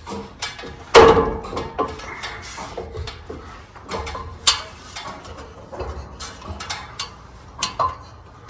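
Climbing a ladder: irregular knocks and clanks of feet and hands on the rungs, the loudest about a second in.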